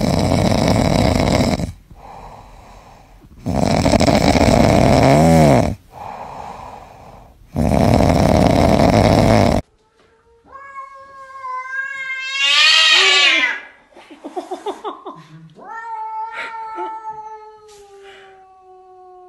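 A sleeping cat snoring loudly, three long snores about two seconds each. Then, from about ten seconds in, a cat yowling in long drawn-out calls, one rising and breaking off, the last held for several seconds and slowly falling.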